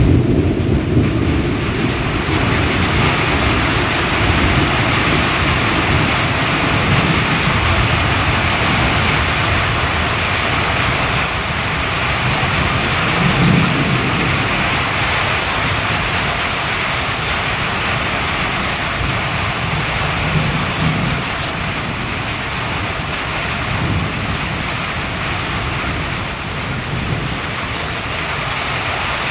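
Heavy rain falling steadily, with low rolling rumbles of thunder underneath, one a little stronger about halfway through.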